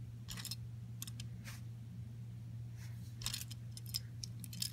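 Faint handling noise: scattered light clicks and rustles, a little louder about three seconds in and again near the end, over a steady low hum.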